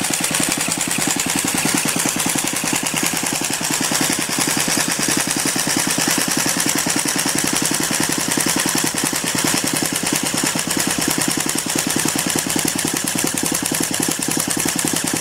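Gasoline engine of a large RC truck being spun by a starter with a fast, even chugging, cranking steadily without catching. It will not fire, which the people starting it suspect is down to no spark or no fuel.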